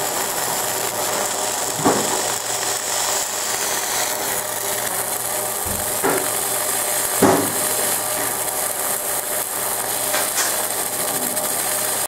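Fiber laser engraving machine deep-engraving a metal buckle: a steady hiss and buzz as the beam ablates the metal, with short falling chirps about two, six and seven seconds in.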